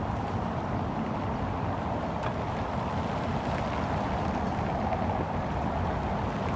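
Steady city street ambience: an even hum of traffic and city noise, with a few faint ticks.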